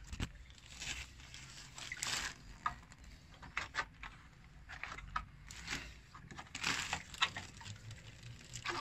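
Thin plastic water jug being handled, with irregular crinkles, knocks and small sloshes of water as an aquarium filter sponge is worked and rinsed inside it.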